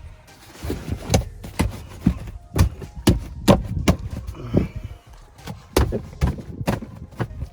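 A run of sharp knocks and thuds, about two a second, with a short pause in the middle, as the back seat is worked into place in the Nissan 300ZX 2+2's rear interior.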